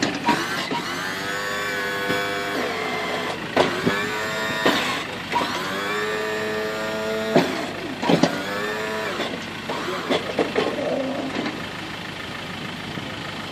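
BOSS Sport Duty snow plough's electric hydraulic pump whining in a series of runs of one to three seconds as the blade is raised, lowered and swung from side to side. Sharp clunks come as runs start and stop.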